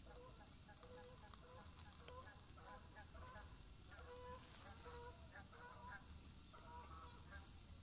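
Faint, repeated short calls of domestic fowl, about two or three a second, over a low steady hum.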